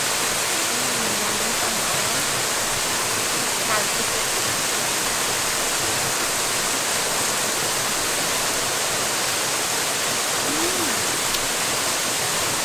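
Steady rush of a waterfall pouring into a pool, an even hiss that holds at one level throughout.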